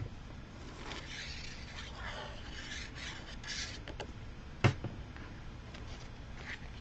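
Paper and card pieces sliding and rubbing against each other and the table as they are handled and laid in place, in soft swishes. One sharp click about two-thirds of the way through, with a few lighter ticks.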